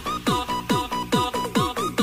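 Electronic background music with a steady kick-drum beat about twice a second under a held high synth note.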